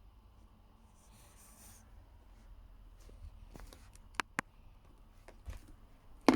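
Faint rustling handling noise, then sharp clicks: two close together about four seconds in, and a louder one near the end.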